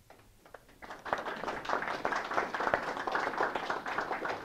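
Small audience applauding: a few scattered claps, then steady clapping from about a second in that starts to thin out near the end.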